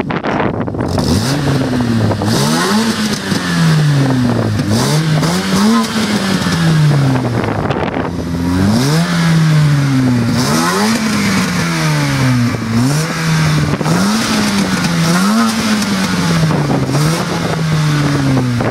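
Opel C20XE 2.0-litre 16-valve four-cylinder engine revving through a tubular Group A header and Group A cat-back exhaust. Its pitch climbs quickly and falls away more slowly, over and over, every two to three seconds.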